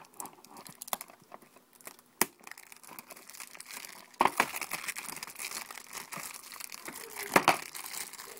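Plastic shrink wrap being picked at and torn off a DVD case. Scattered clicks give way to steady crinkling about four seconds in, with louder crackles near the middle and near the end.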